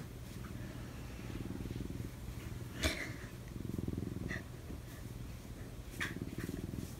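Domestic cat purring steadily while being stroked, the purr swelling and easing with each breath. A couple of soft clicks come about three and six seconds in.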